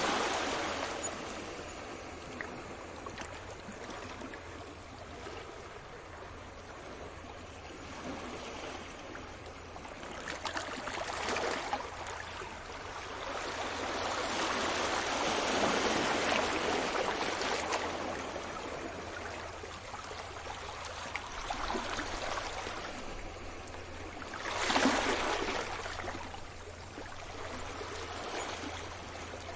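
Sea waves washing onto the shore, the surf swelling and fading in slow surges, with one sharper wave break a few seconds before the end.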